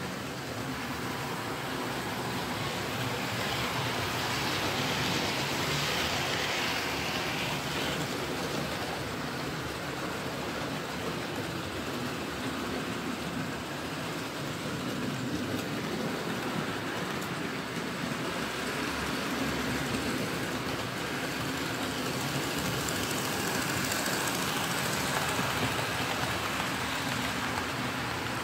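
Model trains running on a layout: a steady rumble of wheels on the track with motor hum, swelling as a train draws near about five seconds in and again near the end.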